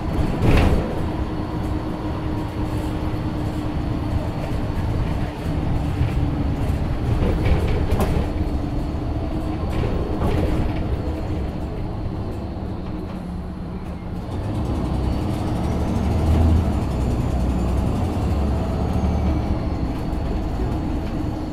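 Scania N94UD double-decker bus on the move, heard from the top deck: the rear five-cylinder diesel runs steadily under road noise and body rattle. There are a few sharp knocks from the bodywork and fittings, the loudest about half a second in.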